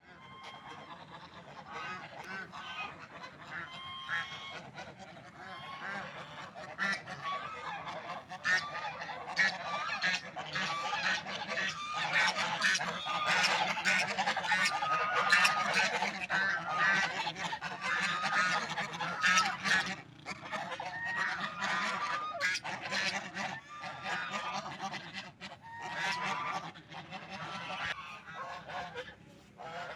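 A flock of ducks calling, with many short, overlapping nasal calls throughout that grow busiest through the middle.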